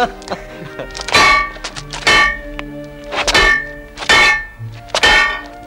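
Steel swords clashing in a duel: about five ringing metal strikes, roughly one a second.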